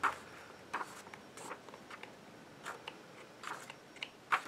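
Magazine pages being turned and handled: a string of short, scattered papery rustles and flicks.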